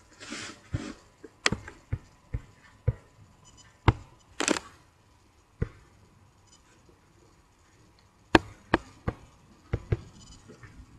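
Computer keyboard keys and mouse buttons clicking: single clicks spread out, then a quick run of key presses in the last few seconds as a word is typed. A short breathy hiss comes near the start and again about four and a half seconds in.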